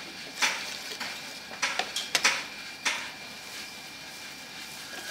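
A metal spoon clinks against a ceramic bowl while stirring and scooping pickled crabs. There are several sharp clinks in the first three seconds, then only a faint steady background.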